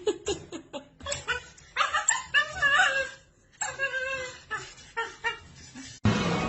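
A dog whining and yipping in a series of short cries that bend up and down in pitch. The cries stop about six seconds in, when music starts.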